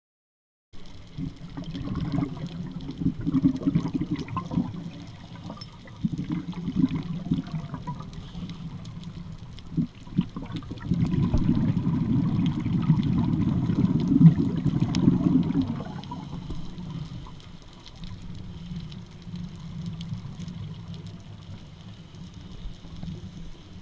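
Underwater sound through a GoPro housing: a scuba diver's exhaled regulator bubbles, a rough low bubbling that comes in bursts, the longest and loudest from about 11 to 16 seconds in. Faint scattered clicks run under it.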